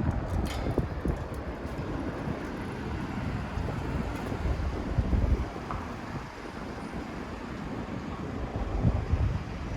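Street ambience: a steady low rumble of road traffic mixed with wind buffeting the microphone.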